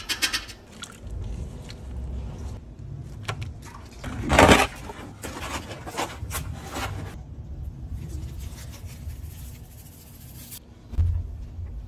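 Kitchen handling noises: a low rumble with scattered clicks and light scrapes, one loud rustling scrape about four seconds in, and a dull thump near the end.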